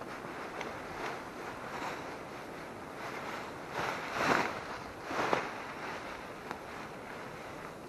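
Wind blowing through the forest as a steady rush, with two short, louder rushes about four and five seconds in.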